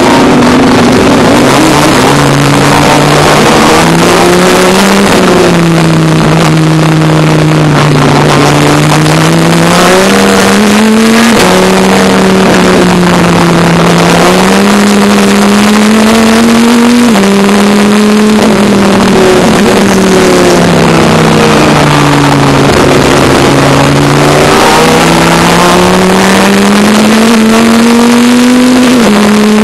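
Dodge Viper ACR race car's V10 engine heard loud from on board at racing speed, its pitch climbing under acceleration, stepping down at gear changes and falling away under braking for corners, over and over.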